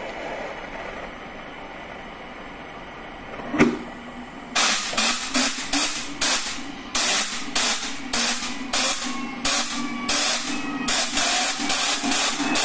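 A micro turbojet engine is being spun up with compressed-air blasts at its intake. A sharp click comes about three and a half seconds in, then short loud blasts of air hiss follow at about two a second. Near the end a faint rising whine comes in as the turbine gains speed.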